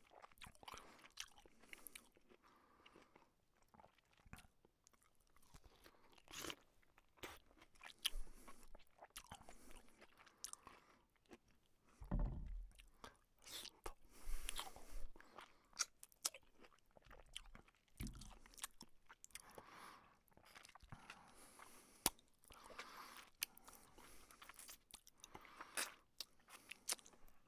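A person eating close to the microphone: irregular crunching bites and wet chewing, with slurps. There are a couple of low bumps, the loudest about halfway through.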